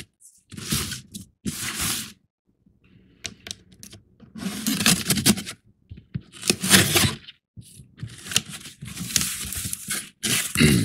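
A cardboard shipping box being opened by hand: packing tape tearing and cardboard flaps scraping, in about half a dozen rough bursts with short pauses between.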